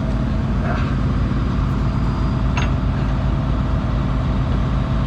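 Combine harvester's diesel engine running steadily, with a low, even hum. A couple of faint light ticks come through over it.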